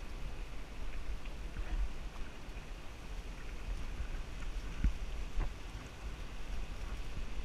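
Wind buffeting an action camera's microphone during a bicycle ride, a steady low rumble with some hiss from riding along a paved lane. A couple of light knocks come about five seconds in.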